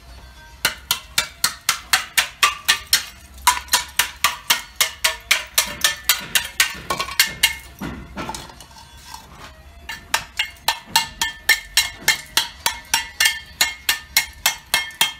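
A steel trowel blade chopping a hand-held hollow clay brick to size: rapid sharp knocks, about four a second, in three runs with a longer pause in the middle.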